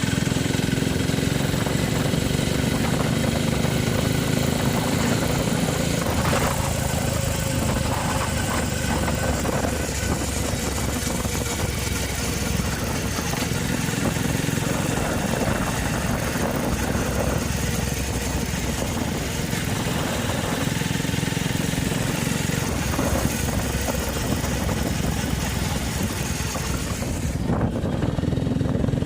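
Honda CG Fan motorcycle's single-cylinder engine running steadily at idle, with a strange noise that the owner likens to a car belt squealing.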